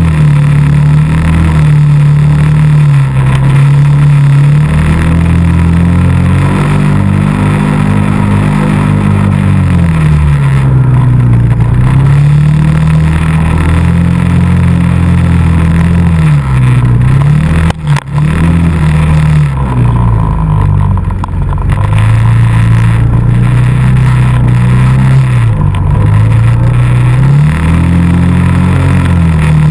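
ATV engine running loud and close, revving up and easing off again and again as it rides, with its pitch swinging up and down. There is a brief knock with a momentary dropout about two-thirds of the way through.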